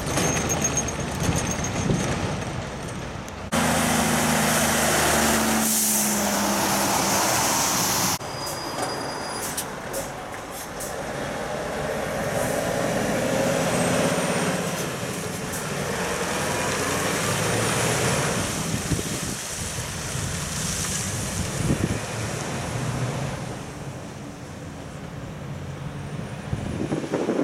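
Heavy logging trucks' diesel engines pulling away and passing, with tyre hiss on a wet road. The sound changes abruptly twice in the first eight seconds, with the loudest engine noise between those two changes.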